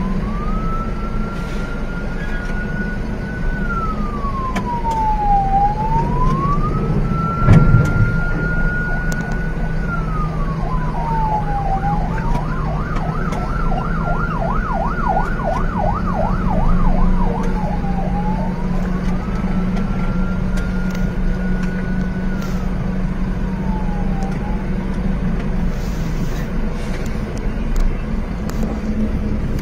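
Emergency vehicle siren wailing, slowly rising and falling about every six seconds, switching to a fast yelp for a few seconds in the middle, over the steady low hum of a vehicle engine in slow traffic. One loud thump about seven and a half seconds in.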